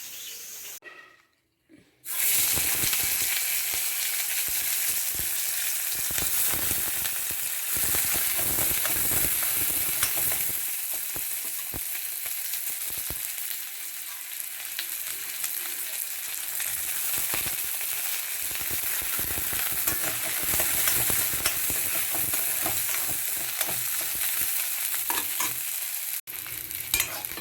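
Food frying in hot oil in a pan: a steady crackling sizzle that starts about two seconds in after a brief silence.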